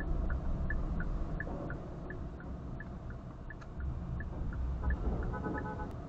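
Car cabin sound with a steady low engine and road rumble and an even ticking about three times a second, typical of a turn-signal indicator. A brief beep of several steady tones sounds near the end.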